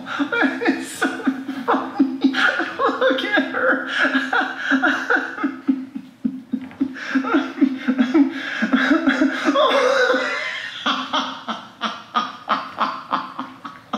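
A person laughing: a long run of short chuckles, over and over, swelling into steadier laughter about eight to ten seconds in.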